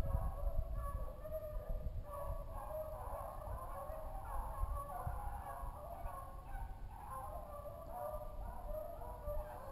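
Wild turkeys clucking and purring: a continuous run of short, irregular calls.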